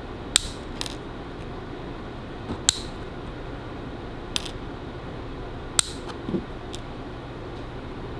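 About six sharp metallic clicks at uneven intervals, small hand tools such as flush cutters snipping and handling a pin header strip, over a steady low hum.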